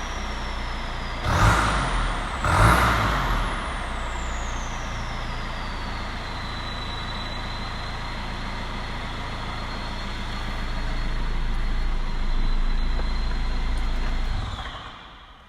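Citroën Nemo HDi turbodiesel with an open exhaust running with a high turbo whistle. Two quick blips of the throttle, about a second and a half and two and a half seconds in, send the whistle sharply up, and it then winds slowly down to a steady pitch. Near the end the engine and whistle die away.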